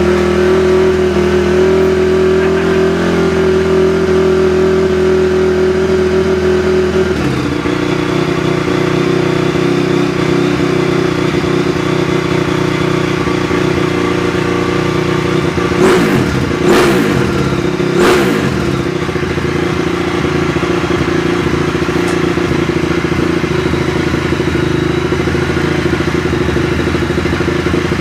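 2004 Honda CRF250R's single-cylinder four-stroke engine running at idle just after firing on one kick, its note changing about seven seconds in, with three quick throttle blips about two thirds of the way through. It starts and runs easily now that the intake valves are back in spec at 0.006 in, which cured its hard starting.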